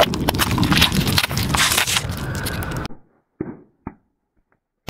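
Car tyre rolling over a row of jumbo crayons and crushing them: loud, dense crackling and cracking for about three seconds. It then cuts off suddenly, and two short bursts follow as laundry detergent pods pop under the tyre.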